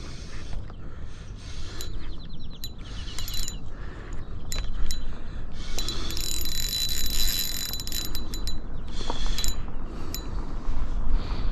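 Spinning reel cranked in bursts while reeling in a hooked trout, its gears whirring. The longest stretch of winding comes about six to eight seconds in.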